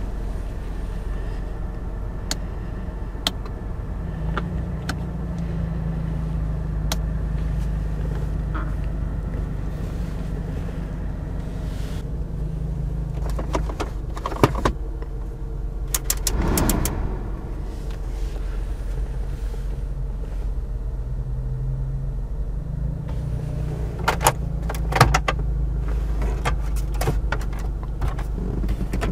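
2011 Toyota RAV4's 2.0-litre four-cylinder engine idling steadily, heard from inside the closed cabin. Scattered clicks and taps come from the dashboard controls being handled, clustered about halfway through and again near the end.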